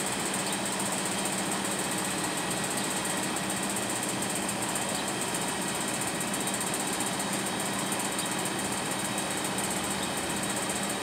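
An engine running steadily: a constant hum with a high hiss over it, unchanging throughout.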